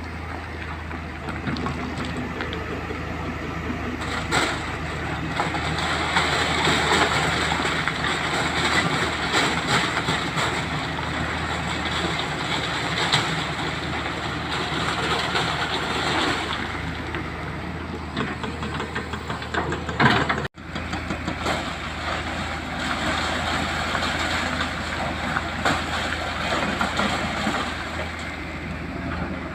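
Excavator's diesel engine running steadily while working, with a continuous rough mechanical noise. The sound drops out for an instant about twenty seconds in.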